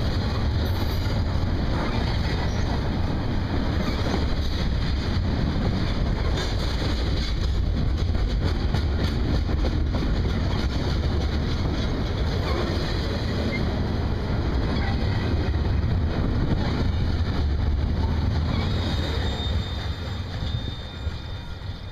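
Double-stack intermodal freight train's well cars rolling past: a steady rumble and clatter of steel wheels on rail, fading near the end as the last car goes by.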